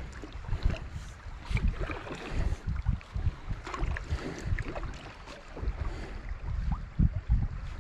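River water splashing and lapping against a kayak's hull as it runs through fast, shallow water. Wind buffets the microphone in uneven low gusts.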